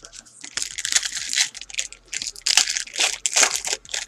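A trading-card pack wrapper being torn open and crinkled by hand. It comes as a run of irregular crackling rips, loudest a little past the middle.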